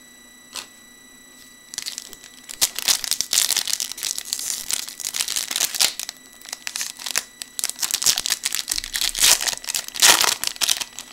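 A trading card pack's wrapper being torn open and crinkled by hand: a dense run of crackling that starts about two seconds in and is loudest near the end. A faint steady high-pitched whine from a PC fan runs underneath.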